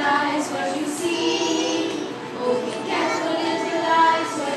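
A group of young children singing a song together, with no breaks.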